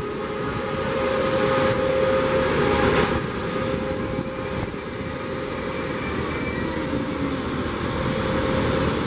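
Amtrak Pacific Surfliner passenger train passing close by, with its Siemens SC-44 Charger diesel locomotive pushing at the rear and going past about four seconds in. There is a brief sharp burst of noise about three seconds in, and a falling tone as the locomotive moves away.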